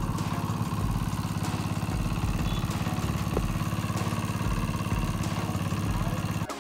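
A small engine running steadily at a constant speed with a rapid, even pulse. It cuts off abruptly near the end.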